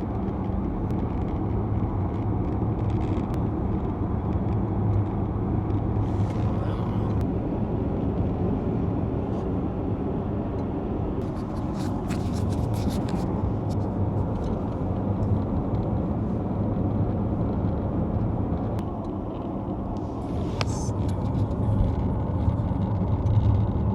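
Cabin noise of a 2020 Jaguar I-Pace electric car on the move: a steady low rumble, with short bursts of crackling and buzzing about 12 seconds in and again around 20 seconds in, among scattered small ticks. The crackle is the strange electronic-sounding noise from the dashboard and steering column area that repeated dashboard dismantling, tightening and sound proofing have not cured.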